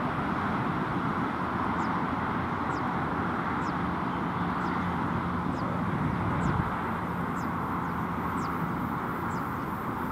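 An ATR 72-500 turboprop airliner's twin engines running in a steady drone as it rolls along the runway for takeoff. Faint short high chirps repeat about once a second over it.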